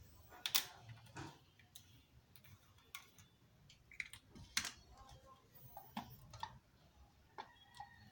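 Faint, scattered clicks and knocks of a plastic engine-oil bottle being handled and tipped against a scooter's oil filler while oil is poured in.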